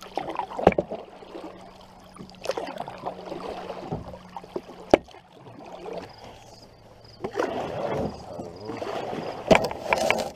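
Canoe paddle strokes pulling through calm water, with splashes and drips in uneven bursts, busiest near the end. Three sharp knocks of the wooden paddle against the canoe, one near the start, one about halfway and one near the end.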